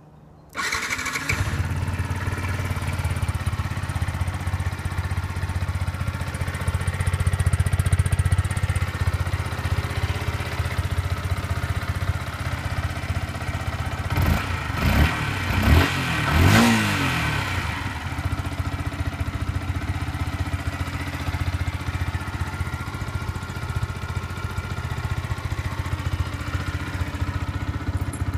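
Yamaha MT-125's single-cylinder four-stroke engine, with its stock exhaust, is electric-started about half a second in and then idles steadily. About halfway through there are a few quick throttle blips before it settles back to idle, and it is switched off at the very end.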